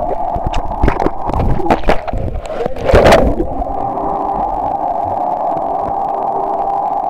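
Swimming-pool sound heard through a camera held underwater: a muffled, steady hum, with bubbling knocks and splashes in the first few seconds, loudest about three seconds in.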